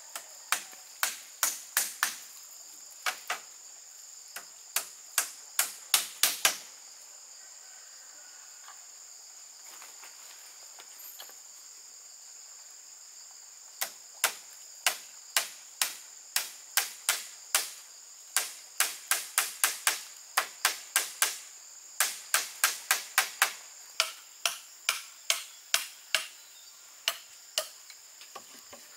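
Hand-tool strikes on bamboo: runs of sharp knocks, about two a second, that stop for several seconds in the middle and then resume, over a steady high-pitched insect chorus.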